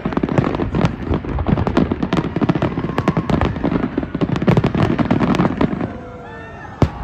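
Dense crackling and banging of many New Year's fireworks and firecrackers going off at once. It thins out about six seconds in, and one sharp bang follows near the end.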